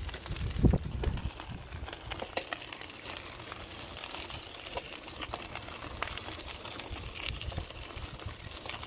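Bicycle tyres rolling over gravel and dirt, a steady crunching patter of small stones, with a low thump under a second in and a few sharp clicks.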